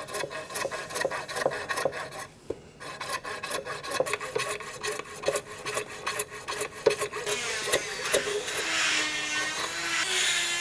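Coping saw cutting through walrus ivory held in a vise, in quick back-and-forth strokes with a brief pause early on. Near the end the strokes give way to a steadier whirring hiss.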